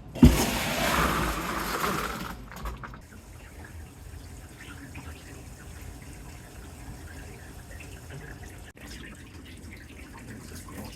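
A knock just after the start, then about two seconds of loud rushing noise, settling into water steadily running and dripping while a commercial ice machine is emptied of ice and cleaned.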